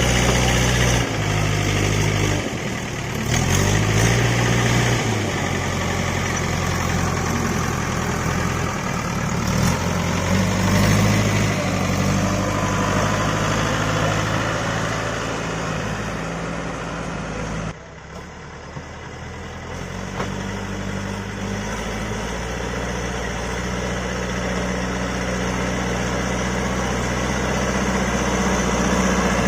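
Diesel engine of a JCB backhoe loader running, its pitch shifting under load in the first few seconds before settling into a steady drone. The sound drops suddenly about 18 seconds in, then builds back to steady running.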